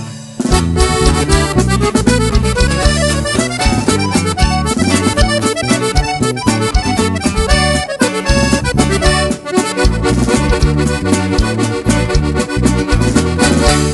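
Instrumental break of a norteño corrido: an accordion plays the melody over a moving bass line with a steady beat. The music drops out for a moment right at the start, then comes back in full.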